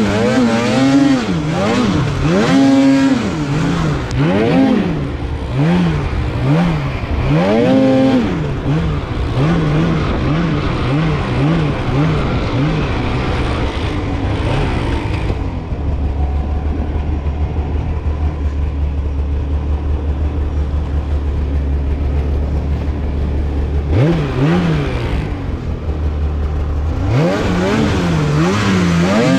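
Polaris Khaos Slash 9R snowmobile's two-stroke twin engine revving up and down again and again with quick throttle blips. For several seconds in the middle it drops to a low steady idle, then revs again near the end.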